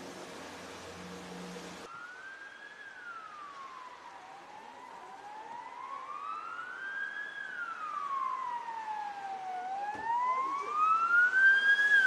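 Emergency vehicle sirens wailing in slow rising and falling glides, more than one overlapping, growing louder toward the end. Before the sirens, for about the first two seconds, there is a steady hiss with a low hum that cuts off abruptly.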